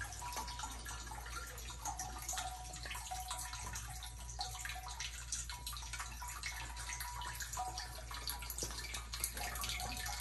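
Water trickling and dripping steadily, with many small plinks and drops.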